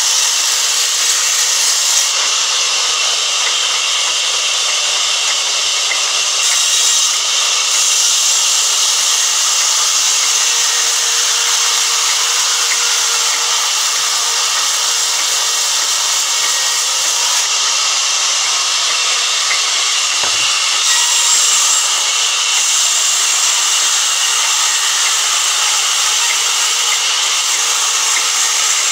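Vertical band saw ripping a thick log lengthwise, its blade cutting through the wood with a steady, high-pitched hiss.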